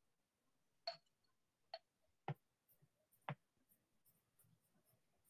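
Near silence broken by four faint, short clicks, spaced roughly a second apart; the last two have a duller knock to them.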